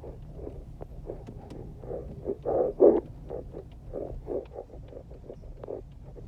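Car bumping slowly over a rough, rocky dirt road: irregular thuds and knocks from the suspension and cabin over a steady low road rumble, with the hardest jolt just under three seconds in.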